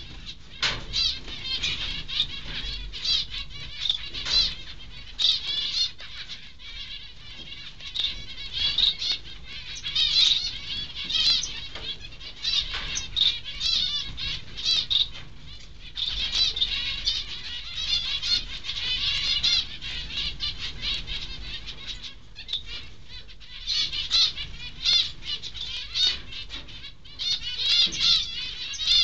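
Zebra finches chirping: many short, high, wavering calls in quick runs, busy throughout with a few brief lulls, over a faint low rumble.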